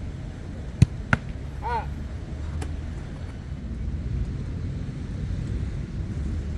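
Two sharp thumps of a football about a third of a second apart, then a short voice-like call, over a steady low rumble.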